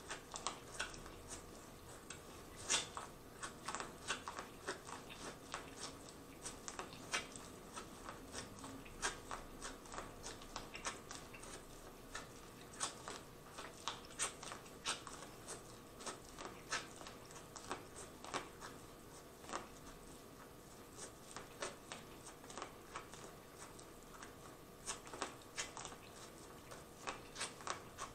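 Biting and chewing boiled corn on the cob: a run of short, crisp crunches and kernel pops, a few a second at an uneven pace, with wet chewing between them.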